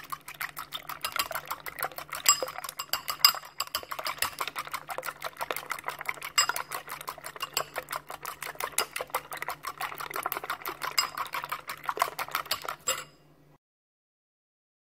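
Rapid, irregular clinking of a metal utensil against a dish, over a faint low steady hum; it stops abruptly about thirteen seconds in.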